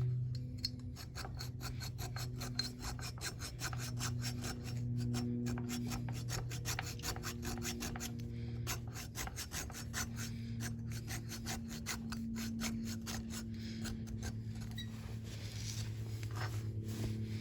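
Hand file worked back and forth on steel in rapid, repeated rasping strokes, dressing a keyway groove. A steady low hum runs underneath.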